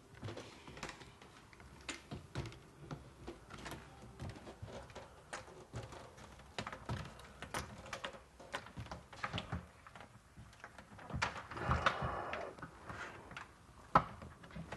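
Wooden wall panels of a booth being handled and fitted together by hand: scattered light knocks and clicks, a stretch of scuffing and rubbing just before the end, and one sharp knock near the end.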